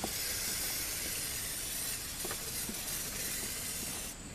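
Aerosol can of chain lubricant spraying onto a motorcycle drive chain: one continuous hiss that stops just before the end.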